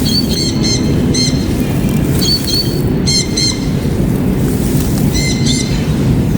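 Birds chirping in several short clusters of high calls over a steady low rumble.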